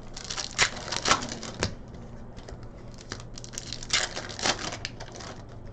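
Trading-card packs being torn open and handled: irregular crinkling and tearing of the pack wrappers, with cards rustling and sliding, louder in a few strokes near the start and again past the middle.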